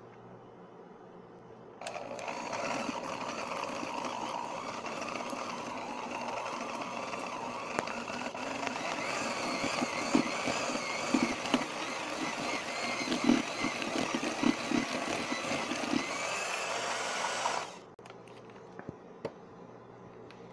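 Electric hand mixer switched on about two seconds in, running steadily as its beaters cream butter and sugar in a glass bowl, with scattered clicks and knocks of the beaters against the bowl. It switches off suddenly about three seconds before the end.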